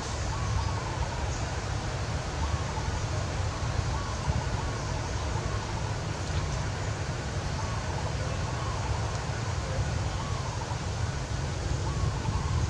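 Steady outdoor background noise with a low wind rumble on the microphone, and faint short rising-and-falling calls recurring about once a second.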